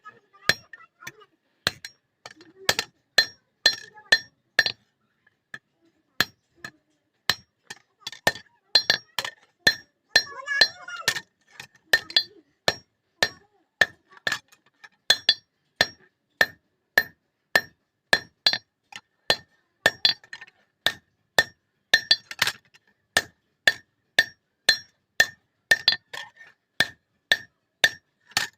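Blacksmith's hand hammer striking steel on an anvil while forging a katari blade: steady blows about two a second, each with a bright metallic ring, with a short pause about five seconds in.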